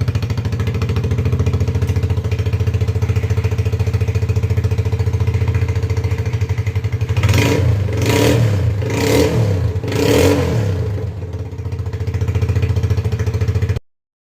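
Zanella Patagonian Eagle 150 motorcycle engine idling, revved four times with quick throttle blips about seven seconds in, then settling back to idle before cutting off suddenly. The exhaust is broken, its silencers rotted out and pipes holed, and the owner says it sounds bad, as if leaking everywhere.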